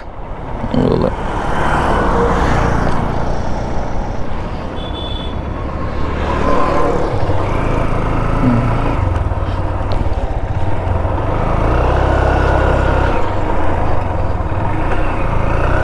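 Honda Hornet motorcycle's single-cylinder engine running with a steady low hum as the bike turns around and rides on, louder from about six seconds in as it picks up speed. Wind noise on the helmet-mounted microphone throughout.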